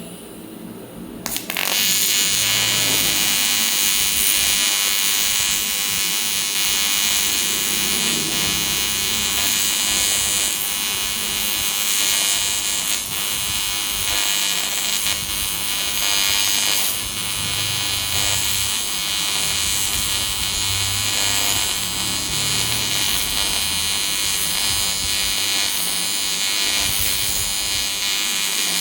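AC TIG welding arc on aluminium, striking about a second in with a sharp crack and then holding a steady, loud buzz with a hiss.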